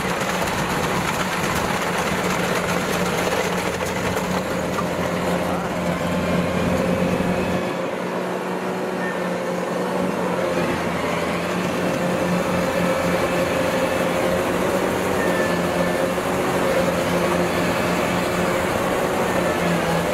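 Kubota DC-93 rice combine harvester running while harvesting: its diesel engine holds a steady hum under the continuous clatter of the threshing machinery and tracks.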